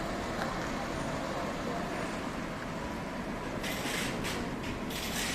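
Steady vehicle rumble with road noise, with two short bursts of hiss in the second half.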